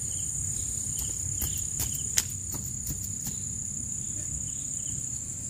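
Steady high-pitched chorus of insects over a low rumble, with a few light clicks in the second and third seconds, the sharpest just after two seconds in.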